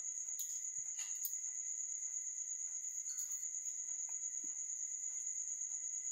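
Steady high-pitched trilling of crickets that never lets up, with a few faint light clicks of vegetable slices being handled and set down.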